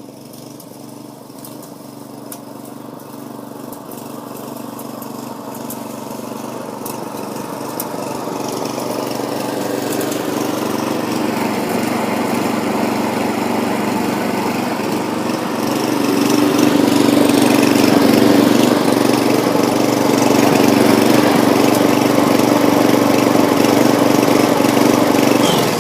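Petrol lawnmower engine running steadily under load as the mower cuts grass, growing louder as it comes closer over the first two-thirds and then holding level.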